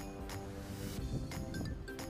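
Background music with held notes and a light, regular beat.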